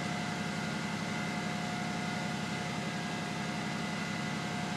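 3-cylinder Caterpillar diesel running steadily at low speed, about 1100 RPM, while driving a 28-volt alternator to charge a battery bank. A fine, even pulse sits in the low end, with steady whining tones above it.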